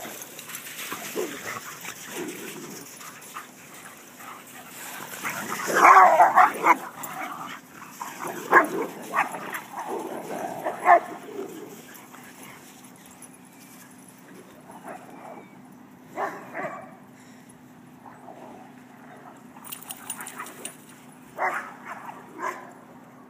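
Dogs barking as they play, the loudest barks about six seconds in and a run of barks around nine to eleven seconds, then sparser, fainter barks.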